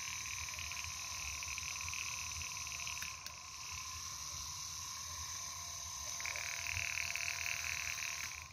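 Toyota Prado electro-hydraulic brake booster pump and motor, bench-run off a jump starter, buzzing steadily as it draws in brake fluid and pushes it out the pressure port. The higher part of the buzz grows louder about six seconds in, and the motor cuts off just before the end.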